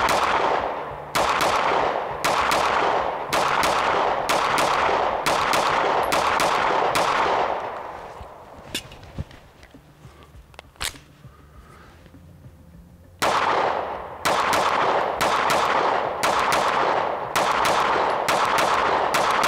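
SIG P365X Macro 9mm pistol firing two strings of rapid shots, each shot trailing off in echo, with a pause of about five seconds between the strings.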